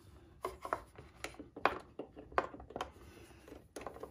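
Light plastic clicks and knocks, about eight scattered over a few seconds, as a motorcycle's plastic fuse box cover is fitted back in place and a hex driver is set to its bolt.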